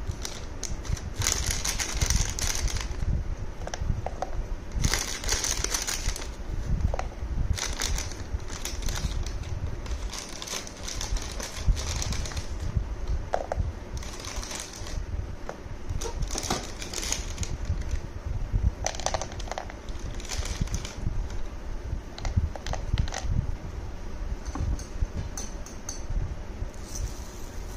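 Almonds, cashews and pumpkin seeds dropped into a glass jar of rolled oats, clattering against the glass in a dozen or so short bursts. A steady low fan hum runs underneath.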